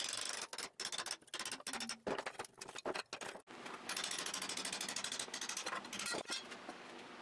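Thin steel canister sheet being bent and scraped by hand as it is peeled off a pressed, forge-welded billet clamped in a vise: metal-on-metal scraping and dense rapid clicking in several strokes, with a longer steady stretch past the middle.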